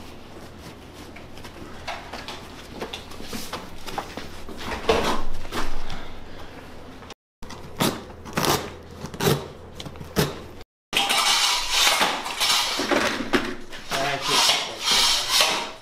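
Irregular knocks, scrapes and clatter of furniture being carried and old carpet being pulled up and rolled, broken by two very short dropouts to silence.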